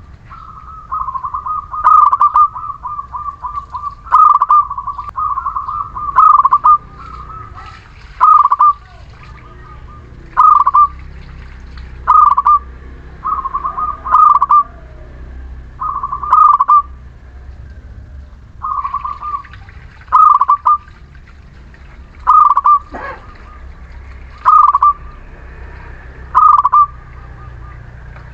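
Local Muria zebra dove (perkutut) singing steadily: a short, rolling coo around every two seconds, with longer trilled runs of notes in the first few seconds.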